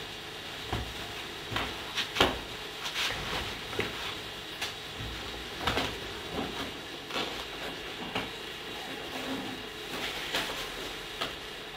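Clothes and a fabric backpack being handled and packed: irregular rustling with a few light knocks, over a steady background hiss.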